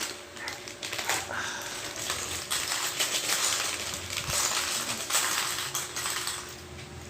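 Small plastic building bricks clattering and rattling, with plastic packaging crinkling as bags of pieces are opened and emptied, busiest through the middle of the stretch.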